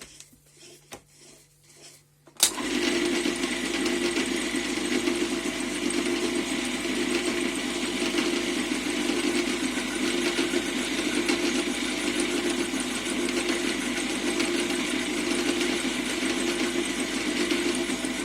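A few light clicks, then an old metal-turning lathe switches on with a sudden jolt about two and a half seconds in and runs steadily, its motor and gearing giving a continuous mechanical drone with a slight regular pulse.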